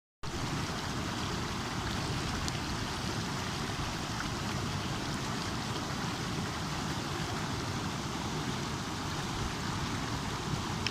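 Water babbling in a flowing stream: a steady, even rush of running water.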